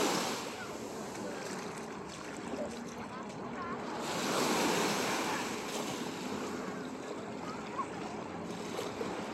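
Gentle surf washing onto a sandy beach in a steady rush that swells twice, near the start and about halfway through.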